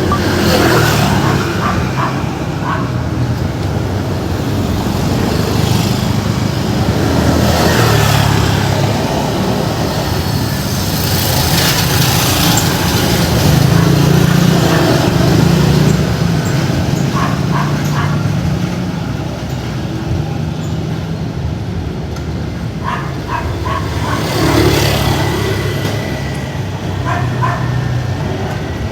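City street traffic: vehicle engines running steadily, with cars passing every few seconds. A dog barks in short bursts, several times near the end.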